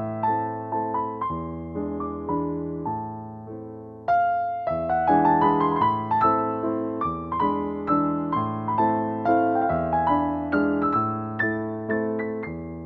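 Background piano music: struck notes at a steady, gentle pace over sustained low bass notes.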